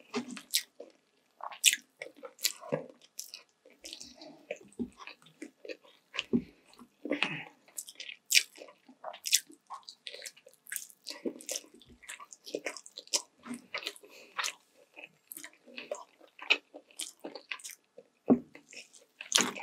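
Close-up eating sounds of a person chewing saucy sweet and sour chicken and rice, with frequent short, wet mouth smacks and clicks at an irregular pace.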